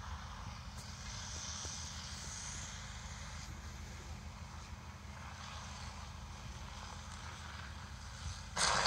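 Steady low engine rumble from fire engines working at the scene, heard from a distance, with a faint hiss over it. Near the end a short, loud burst of noise cuts in.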